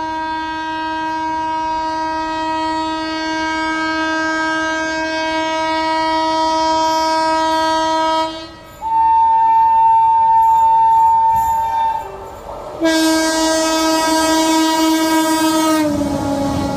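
WAP7 electric locomotive's dual-tone horn sounding a long low blast of about eight seconds, then a higher note for about three seconds, then the low note again. Near the end the low note drops in pitch as the rush and clatter of a passing train come in.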